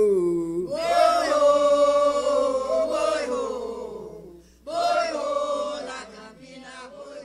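Tambor de crioula song from Maranhão: voices singing a chant in long held notes, two phrases with a short break between them, fading out near the end.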